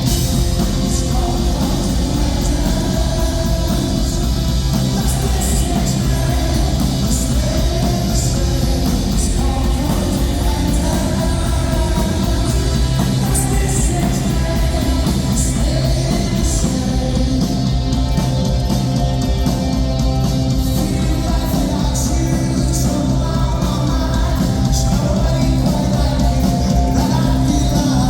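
A rock band playing live, with a singer's vocal over a loud, steady band.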